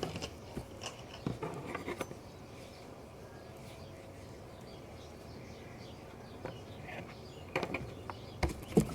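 Faint scattered taps and clicks of hands and tools working Play-Doh on a tabletop over a low room hum, with a few sharper clicks near the end.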